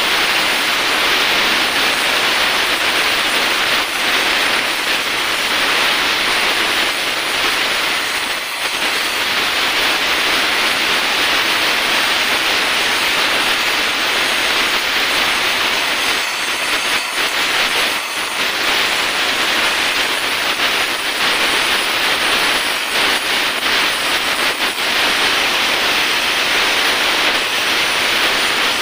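Oxy-acetylene welding torch, its acetylene from a carbide generator, burning with a loud, steady hiss as it melts aluminium into a cracked oil drain bolt hole in a scooter crankcase. The hiss dips briefly a few times.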